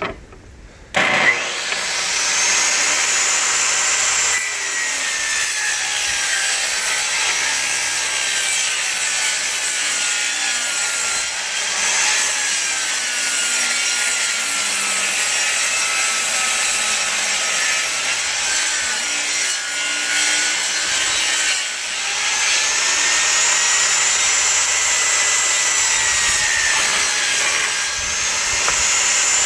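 Ridgid table saw starting about a second in, then running and ripping wood. Its whine sags in pitch as the blade loads up and recovers between cuts.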